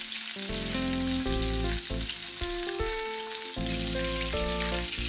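Small pieces of chicken thigh sizzling in olive oil in a frying pan as they brown, with background music playing a simple melody of changing notes.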